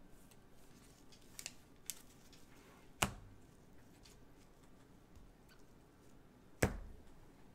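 Gloved hands handling trading cards and a clear plastic card holder: a few light clicks, then two sharp taps on the table about three and a half seconds apart.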